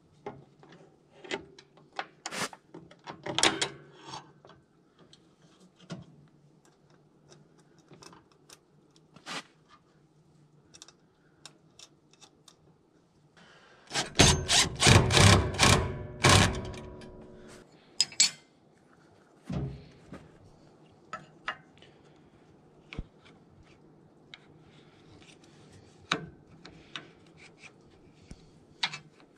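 Cordless impact driver hammering a bolt tight in a loud rapid burst of about two and a half seconds, the loudest sound, midway through. Before and after it, scattered clicks and knocks of steel sawmill parts being handled and fitted.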